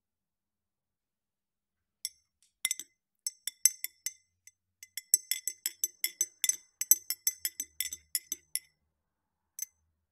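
Metal spoon clinking against a drinking glass as it stirs a drink with ice. A few scattered clinks come first, then a quick run of about five or six a second, then one last clink near the end.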